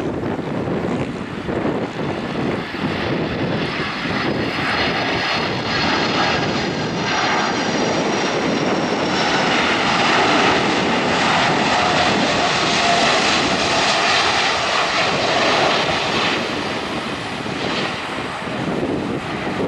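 Boeing 747-400 freighter's four jet engines on final approach, a steady rumble with a high whine that slides slowly down in pitch as the aircraft passes, growing loudest in the middle and easing slightly near the end.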